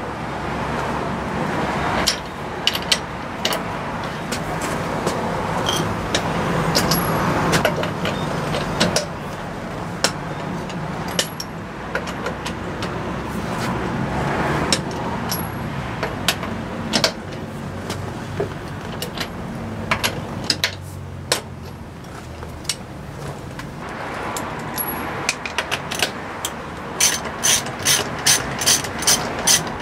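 A socket ratchet wrench on car wheel nuts, giving scattered ratcheting clicks over a steady background hiss. Near the end the clicks come in a quick even run, about three a second, as a nut is spun.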